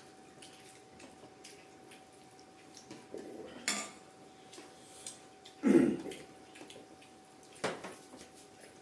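Eating utensils clinking and knocking against dishes, a few separate clinks with the loudest about six seconds in, over a faint steady hum.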